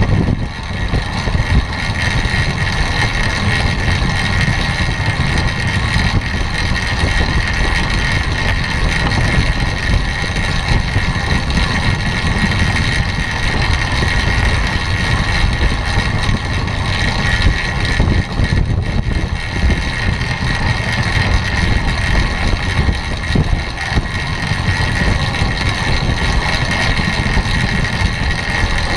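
Wind rushing over a bike-mounted camera's microphone as a track bike rides the wooden velodrome boards at about 26 mph, with a steady hum from the tyres and drivetrain. The sound stays even throughout.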